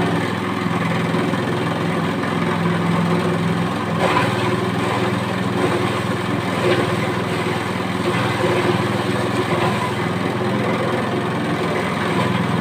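Honda GX200 single-cylinder four-stroke engine running steadily at a constant speed, with a couple of brief louder moments about four and seven seconds in.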